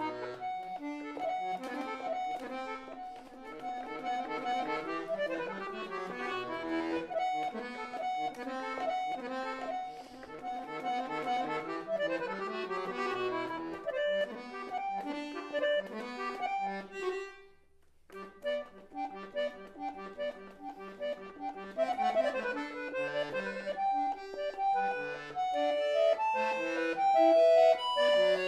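Solo harpsichord playing quick, ornamented Baroque keyboard music. The plucked notes come in dense runs, break off briefly a little past halfway, then resume.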